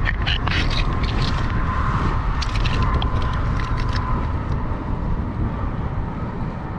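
Strong wind buffeting the microphone, with a run of sharp clicks and ticks through the first few seconds and a faint thin steady whine in the middle.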